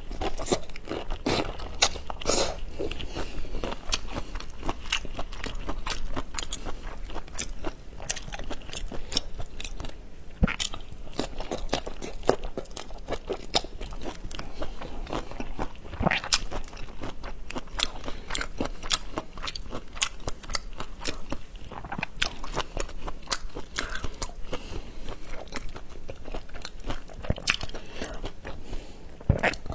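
Close-miked biting and chewing of whole marinated prawns in their shells: a dense stream of crunching and crackling clicks.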